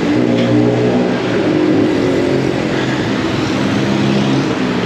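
City street traffic: motor vehicle engines running close by, a steady low engine hum whose pitch shifts a little now and then, over general traffic noise.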